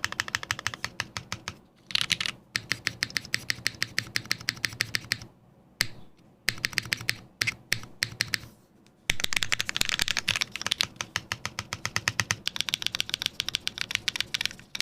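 Fast typing on a custom mechanical keyboard: lubed KTT Rose linear switches under GMK keycaps on an FR4 plate, in a silicone tray-mount case. A quick, even stream of keystroke clacks, broken by a few short pauses.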